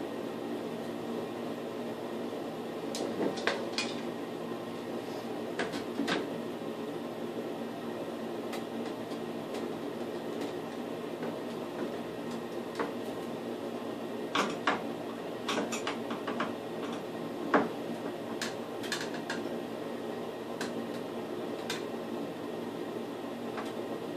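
Scattered light taps and clicks as a metal light-mounting bracket and a spirit level are handled against a wall, the sharpest near the end, over a steady mechanical hum.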